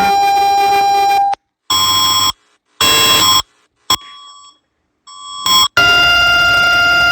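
Electronic EAS-style alarm tones: a steady tone cuts off about a second in, followed by several short beeps with silent gaps, then a new steady tone starts near the end.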